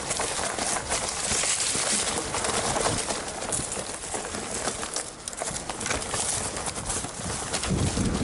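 Mountain bike riding a rough trail: continuous tyre noise over dirt and stones, with the bike clattering and rattling in many short, uneven knocks.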